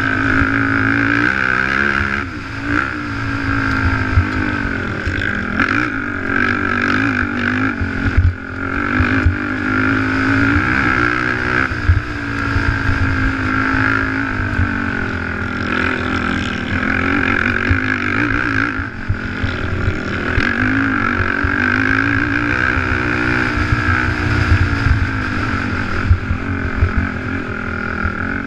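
Race quad's engine running hard under the rider, its revs rising and falling over and over with throttle and gear changes. Sharp knocks from the rough dirt track come through the chassis.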